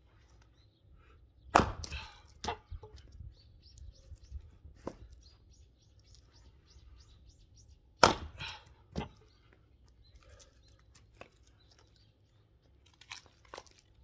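Axe splitting firewood logs: two heavy strikes about six seconds apart, each followed by a few lighter knocks as the split pieces fall.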